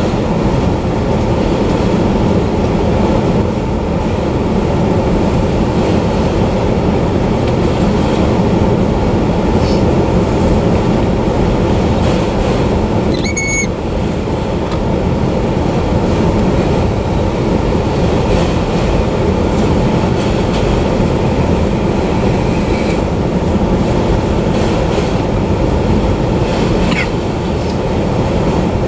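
Enclosed autorack freight cars rolling past at speed: the steady, loud noise of steel wheels running over the rails. A short high squeal cuts in about halfway through, and a fainter one comes near the end.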